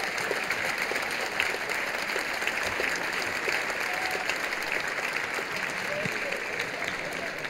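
Large audience applauding steadily as a guest is welcomed onstage.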